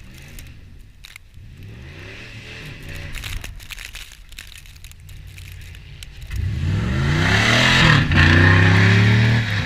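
A vehicle engine revving up under acceleration, its pitch rising. A quieter rise comes early, then a loud hard acceleration from about six seconds in, dipping briefly near eight seconds before holding high until it falls away near the end.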